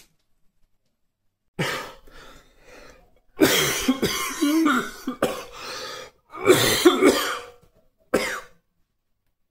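A man coughing in a fit of several loud bouts, starting about a second and a half in, with the longest spells in the middle. It is a persistent, dry, painful bronchial cough that has not gone away.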